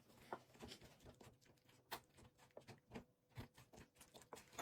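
Faint, irregular soft taps and clicks of tomatoes being ground by hand in a bowl.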